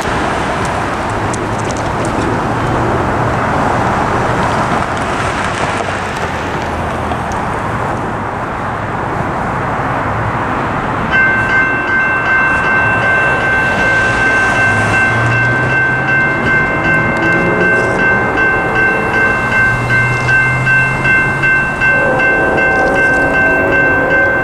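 Road traffic passing, then about eleven seconds in a crossing signal's General Signals Type 2 electronic bell starts ringing, a steady pulsing high tone, as the crossing activates for an approaching train. Near the end a train horn joins in with a lower chord.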